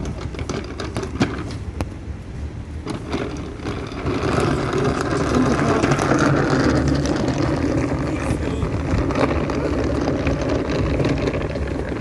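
Hard plastic wheels of a Henry vacuum cleaner rumbling and rattling over rough tarmac as it is dragged along by its hose, getting louder about four seconds in.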